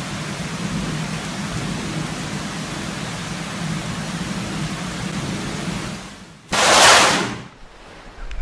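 Steady heavy rain, then about six and a half seconds in a sudden, very loud crack of close lightning that lasts about a second and dies away.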